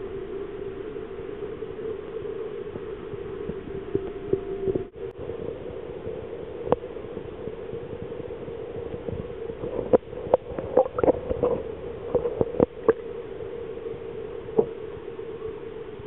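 Steady underwater hum of a sturgeon recirculation tank's water system, with a brief dropout about five seconds in. A cluster of sharp clicks and knocks comes about ten to thirteen seconds in.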